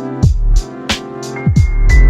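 Background electronic music with a heavy beat: sharp drum hits and deep bass drops that slide down in pitch.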